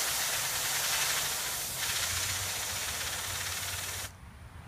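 Aerosol spray can jetting gas onto a hand-held fidget spinner: one steady, loud hiss that cuts off suddenly about four seconds in.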